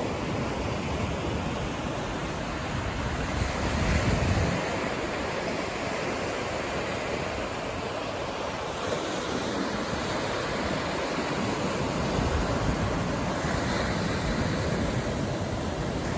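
Ocean surf breaking and washing up the beach, a steady rush that swells about four seconds in and again near the end, with wind buffeting the microphone.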